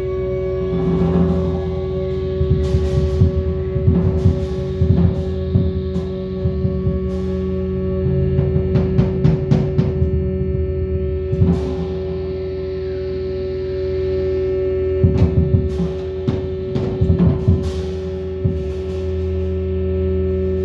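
Percussion: irregular clusters of drum-like hits over a steady, sustained ringing tone like a gong's, which holds throughout.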